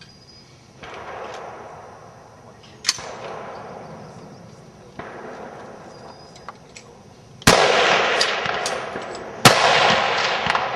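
High-power rifle shots fired singly along a firing line in standing slow fire, about five in all, each followed by a long decaying tail. The two near the end, about two seconds apart, are much louder than the rest.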